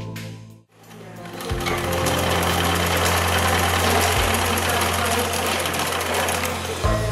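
Singer sewing machine running and stitching, a dense, even mechanical clatter with a low hum. Background music fades out in the first second and comes back near the end.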